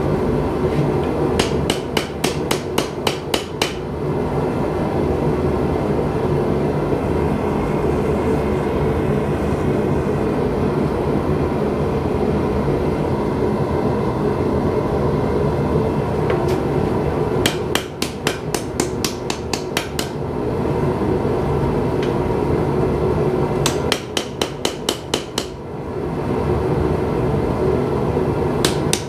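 Hammer blows on hot steel at the anvil, coming in quick runs of several ringing strikes, about three to four a second, as a finger-ring hole is forged into a bowie blade. A loud steady rushing noise runs underneath between the runs of blows.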